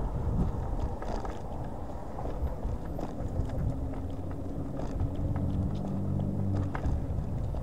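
Riding noise from a Hiboy S2 Pro electric scooter on city streets: wind buffeting the microphone and steady road rumble, with a few small knocks and rattles over bumps. A low steady hum joins from about three and a half seconds in and fades out near seven seconds.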